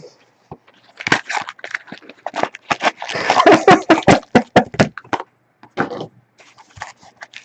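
People laughing hard in quick bursts, loudest about three to four and a half seconds in.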